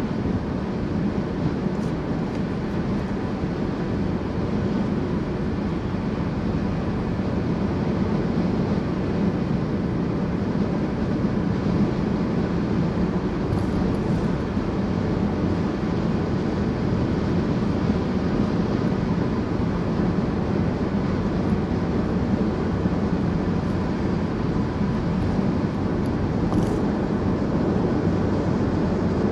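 Steady road and tyre noise with engine hum from a car cruising at highway speed, heard from inside the cabin.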